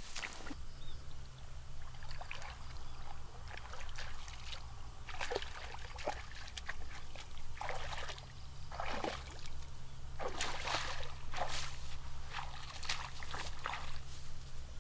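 Shallow muddy water sloshing and splashing in a dozen or so irregular bursts as a person wades in a ditch and works a long bamboo pole through it.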